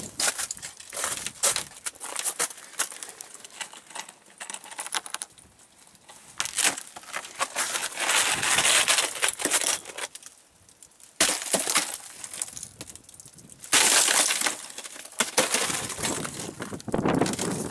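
Plastic snow shovel scraping and chipping a sheet of ice off a wooden deck: crackling, clinking ice breaking up, with longer scraping runs, the loudest about halfway and again about two-thirds through.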